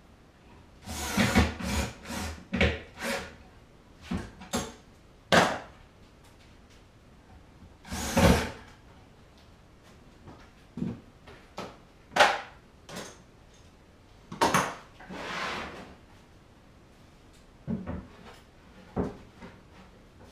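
Irregular wooden knocks and clatter with a few short scrapes, wood being handled. About a dozen separate knocks, the loudest clusters near the start, in the middle and toward the end, with two longer scraping sounds.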